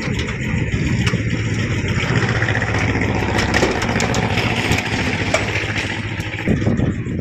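Steady, loud mechanical rumble with a fast, even rattle, like an engine idling, changing character near the end.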